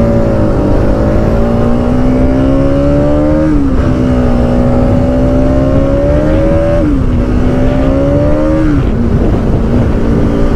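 Bajaj Pulsar NS200 single-cylinder motorcycle engine accelerating under way, its note climbing in each gear and dropping sharply at three upshifts, over heavy wind rumble on the microphone.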